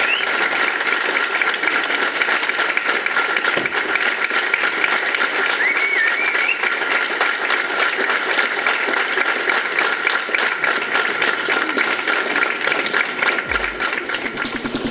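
Audience applauding: dense, steady clapping from a theatre hall, thinning slightly near the end.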